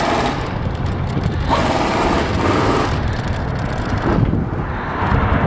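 Wind buffeting the microphone of a bicycle-mounted camera during a ride, a steady low rumble, with road traffic going by.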